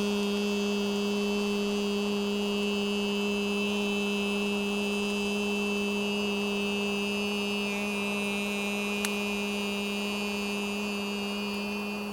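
A man's voice holding one long, steady 'eee' vowel on a single pitch: the qigong 'E' healing sound, directed to the point between the eyebrows. It eases off slightly near the end, and there is a faint click about nine seconds in.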